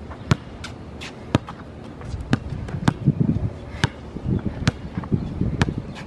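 Basketball being dribbled on a hard court: about ten sharp bounces, irregularly spaced half a second to a second apart.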